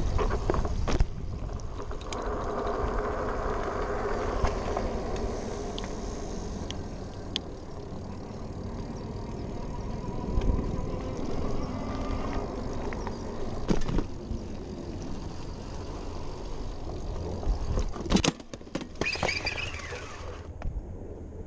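Super73 ZX electric bike being ridden: wind on the handlebar microphone and tyre rumble, with the electric motor's whine rising and falling in pitch. About 18 seconds in comes a clatter of sharp knocks as the battery ejects from the frame and hits the ground.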